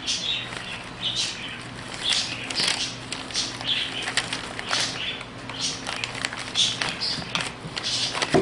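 Irregular rustling and small clicks of hands working wiring and a plastic connector into an air suspension pump over newspaper, with a faint steady low hum underneath.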